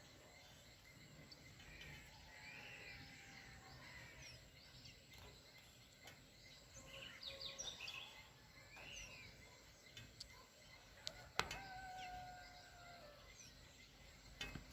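Faint, scattered bird chirps and calls over steady outdoor background noise, with a sharp click about eleven seconds in.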